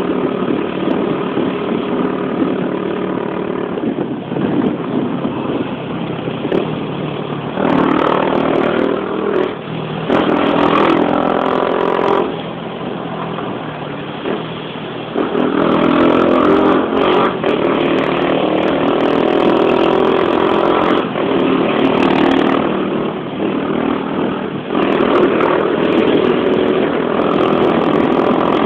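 Motorcycle engine heard from the rider's seat, running under way through city traffic. It pulls harder and louder in three long stretches, dropping back between them as the throttle eases.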